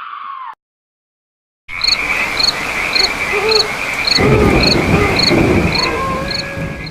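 Night-time nature ambience sound effect: high chirps repeating about twice a second over frog calls, with a low rumble of thunder coming in about halfway.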